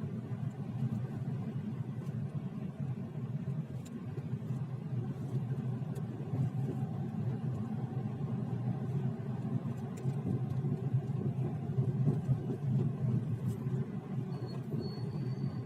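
Steady road and tyre rumble of a Lada Vesta being driven, with a few faint, scattered knocks: the suspension knock the owner is recording.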